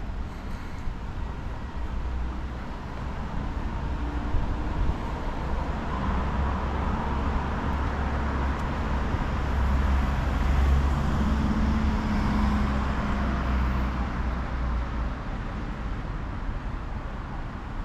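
City street traffic: a steady rumble of vehicles, with one passing vehicle growing louder through the middle and fading toward the end.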